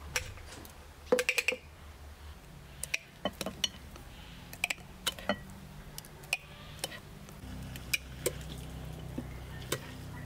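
Kitchen utensils clinking and tapping against dishes and pots: irregular sharp knocks, with a quick run of clinks about a second in.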